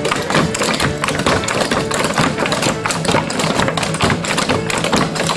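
Clogging footwork on a wooden deck: many dancers' rapid, irregular taps and stomps over live acoustic music with a guitar.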